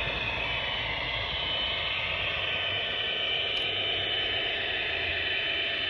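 HO scale MTH SD70ACE model diesel locomotive and its coal hoppers running past on the track: a steady, even running noise with a thin, steady high whine.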